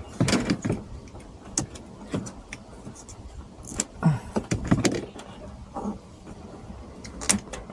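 Irregular scraping, rubbing and sharp clicks of fish tape and a camera cable being pushed through a car's plastic trim panels, in two busier spells.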